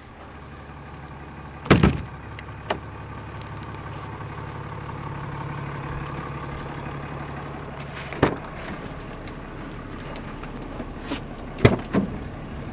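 Steady engine hum with a few sharp knocks, the loudest about two seconds in and two close together near the end.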